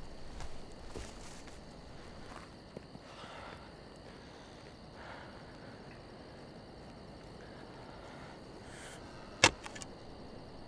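Quiet night-forest ambience with a faint steady high tone and soft rustles, then near the end one sharp strike of a shovel blade into the ground, followed by a few small clicks.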